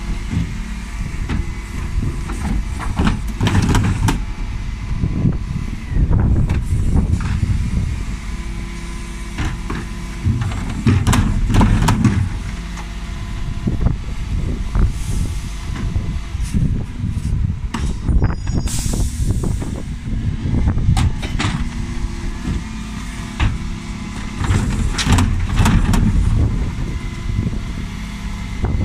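Dennis Elite 6 refuse truck's Terberg TA-DE bin lift raising and tipping wheelie bins, with the truck's engine running under the hydraulic load and repeated knocks and bangs from the bins being emptied. A short hiss of air comes about two-thirds of the way through.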